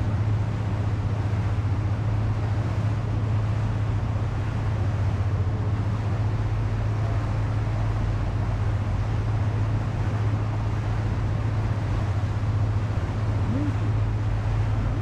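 Motorised rabelo river boat's engine running steadily, a low, even drone heard from on board.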